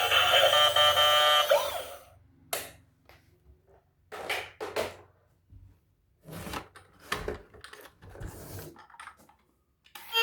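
Background music that cuts off about two seconds in, followed by a scattering of short knocks and clicks with near silence between them.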